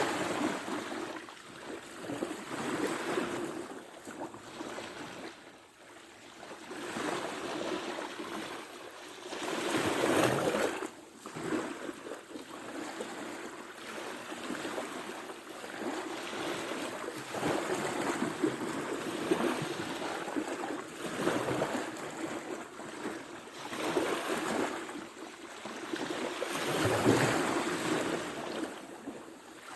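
Ocean waves breaking and washing up the shore, the surf swelling and easing every several seconds, loudest about a third of the way in and again near the end.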